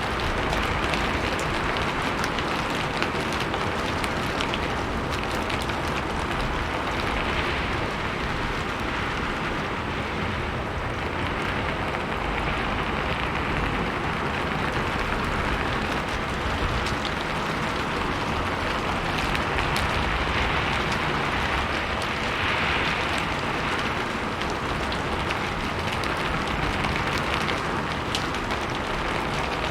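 Steady rain falling on a roof: a dense, even patter of drops with fine individual taps scattered through it.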